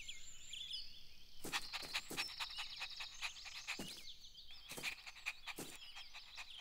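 Cartoon garden sound effects: birds chirping, and a puppy panting in quick, irregular breaths from about a second and a half in.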